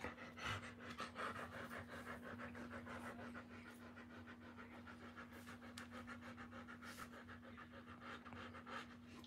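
Doberman Pinscher dam panting rapidly and rhythmically while whelping her litter, stopping near the end.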